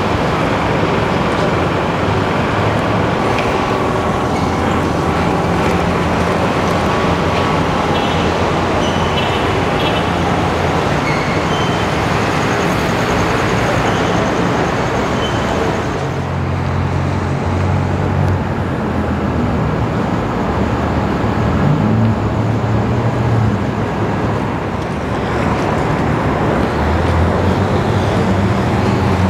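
Steady city traffic noise from cars driving on rain-wet streets, with a low engine hum that grows stronger about halfway through.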